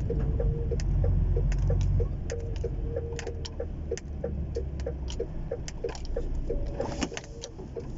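Cab-interior sound of a DAF truck's freshly overhauled engine running during its run-in, easing off about two seconds in, with rapid regular ticking and clicks throughout.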